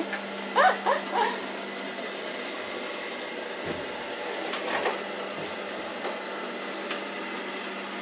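A few short, high animal calls from a pet about a second in, over the steady running of a robot vacuum cleaner.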